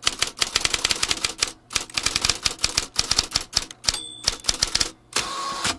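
Rapid typewriter-style key clacks, several a second, broken by short pauses, with a brief steady rasp about five seconds in.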